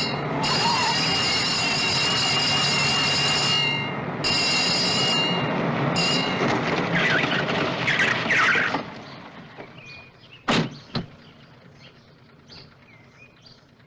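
Car tyres squealing in long, high-pitched screeches as cars take corners at speed, broken by short pauses, over engine noise. About nine seconds in it falls much quieter, and one sharp knock follows.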